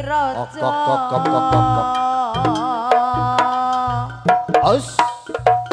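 Live East Javanese jaranan ensemble music: hand drums beating under a low pulsing bass, with a high melody line that wavers and holds long notes.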